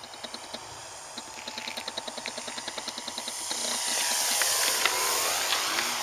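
Radio-control model airplane making a close, low pass: its motor and propeller whine swells to its loudest about four to five seconds in, bends in pitch and then fades. A rapid, even ticking runs underneath throughout.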